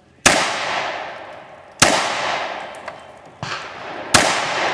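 Handgun fired four times, roughly a second and a half apart, the third shot quieter; each sharp report trails off in a long fading echo.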